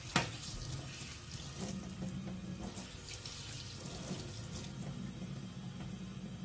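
A sharp click, then water running steadily from a kitchen tap into the sink while turkey berries are washed under it.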